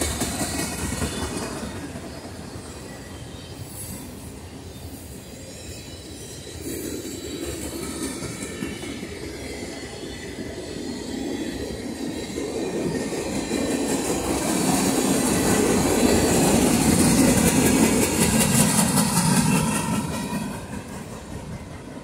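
Freight cars of a passing manifest train rolling by: steel wheels rumbling and clacking on the rails. It grows loudest past the middle, then fades as the last cars go by near the end.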